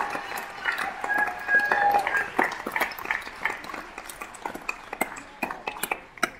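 Audience applause thinning out to scattered claps, with a few brief voices calling out; it fades away toward the end.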